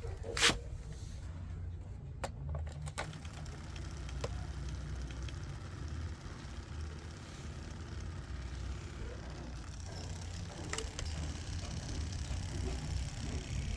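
Washing machine drain pump running on a bench test, a steady low hum, with a sharp click about half a second in as it is switched on. The pump running this way shows it is working.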